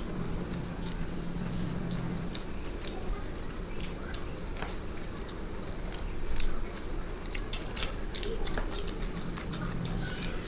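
Two people eating egg biryani with their hands: close, wet chewing with many small mouth clicks and smacks, one louder about two-thirds of the way through. A low steady hum sits under the first two seconds and returns near the end.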